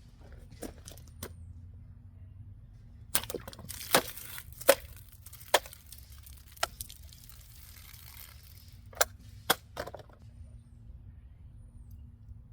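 Victorinox Ranger Swiss Army knife blade slashed and chopped into a cutting-test target: a string of about a dozen sharp cracks and knocks, from about three seconds in until about ten seconds in, with a rustle between the early strikes.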